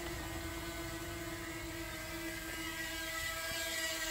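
DJI Mini 2 quadcopter drone hovering, its propellers giving a steady whine with a slight waver in pitch.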